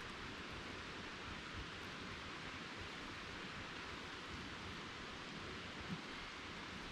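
Faint steady outdoor background hiss, even and unbroken, with no distinct sound standing out.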